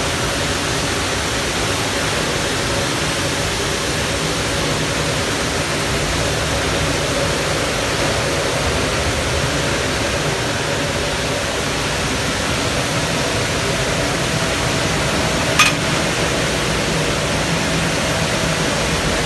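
Steady rushing noise of car wash machinery, with a faint steady hum running through it. A single sharp click sounds about three-quarters of the way through.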